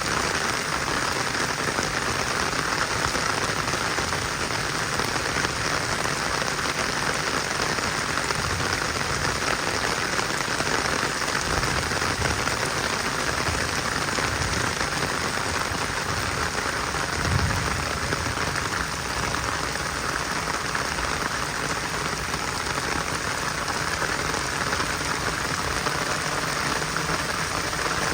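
Heavy rain falling steadily in a dense, even hiss, with a low rumble swelling beneath it in the middle.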